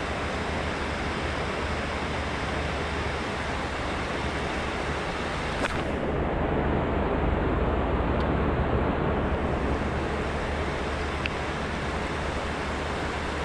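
Steady rush of a flowing river, swelling louder for a few seconds in the middle, with a few faint clicks.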